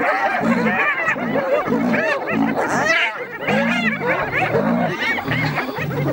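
A pack of spotted hyenas giggling and squealing in many quick, overlapping rising-and-falling calls, over low, repeated growls.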